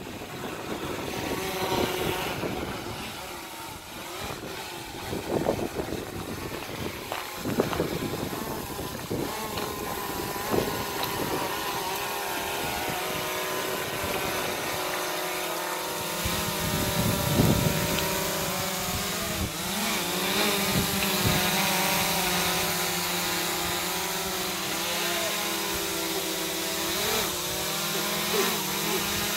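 Small quadcopter drone's propellers whining as it hovers close by: a stack of steady tones that waver in pitch as it adjusts position, growing clearer and louder about halfway through.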